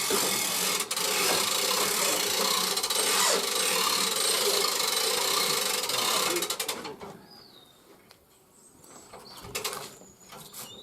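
A winch hauling a log up the ramps onto a bandsaw mill, with a steady clattering, ratcheting mechanical noise that stops about seven seconds in. A few faint knocks follow.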